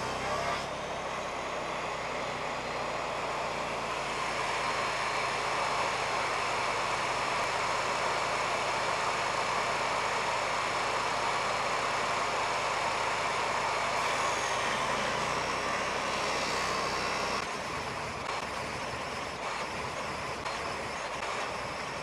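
Table saw fitted with a stacked dado blade set, running steadily while a board is fed through it to cut a shiplap rabbet channel, easing slightly about three-quarters of the way through.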